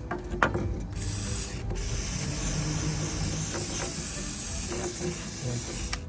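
Aerosol spray can fired through its straw nozzle: a short burst, a brief break, then a long steady hiss of about four seconds. A couple of sharp clicks come just before the spraying.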